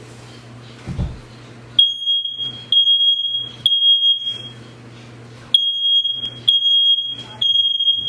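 Smoke alarm set off with its test button, sounding a high-pitched beep in groups of three long beeps with a short pause between groups, starting about two seconds in. A dull thump comes just before it starts.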